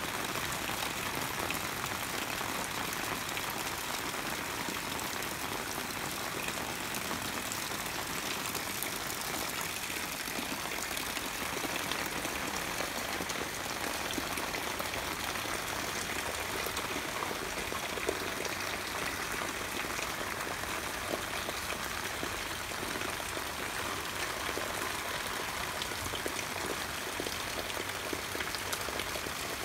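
Steady rain falling, an even hiss with scattered sharper taps of single drops.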